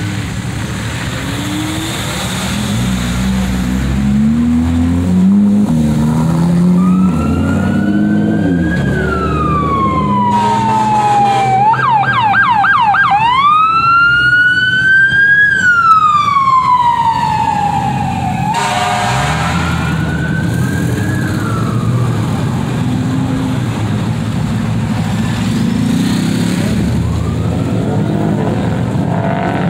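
Emergency vehicle siren wailing up and down, switching to a rapid yelp for a couple of seconds midway, then wailing again before fading. Car engines rumble and rev underneath.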